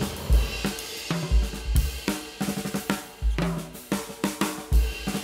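Background music with a steady drum-kit beat (kick drum, snare and hi-hat) over a bass line.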